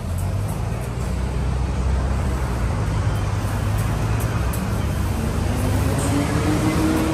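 Road traffic on a nearby city street: a steady low engine rumble, with one vehicle's engine note rising and then falling near the end.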